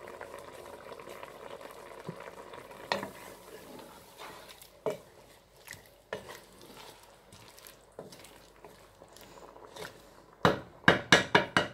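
A wooden spoon stirs mutton and tomatoes in a simmering cooking pot, with a low bubbling hiss and scattered scrapes and knocks of the spoon against the pot. Near the end there is a quick run of about six loud knocks.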